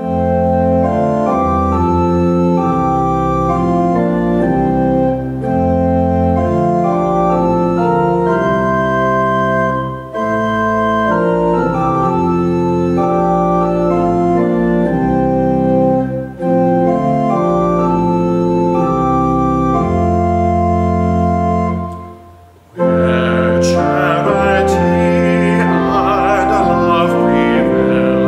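Organ playing the introduction to a hymn in sustained chords, breaking off briefly about 22 seconds in; singing with vibrato then comes in over the organ.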